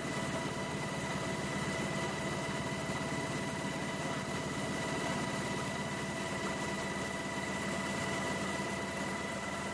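Aircraft cabin noise: a steady engine drone with a fine, fast low pulsing and a constant high whine.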